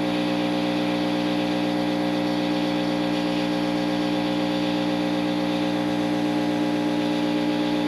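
Heat gun running steadily, its fan motor humming under the hiss of blown air as it heats a solder seal connector to melt the solder.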